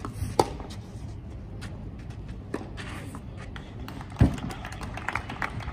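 Tennis rally: sharp racket-on-ball hits roughly every two seconds, the loudest about four seconds in, over a steady low background hum.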